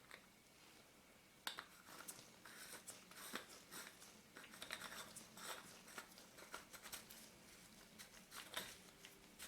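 Faint, scattered clicks and light scraping of small metal and glass parts of a magnifier loupe being fitted back together by hand.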